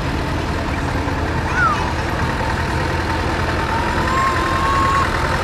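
Tractor engines running with a steady low rumble, amid general outdoor noise. A short high tone glides down about a second and a half in, and a thin tone rises and holds near the end.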